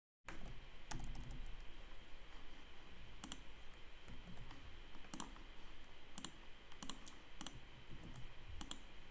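Scattered computer mouse and keyboard clicks, about a dozen sharp single clicks at uneven intervals, over a faint steady hiss from the microphone.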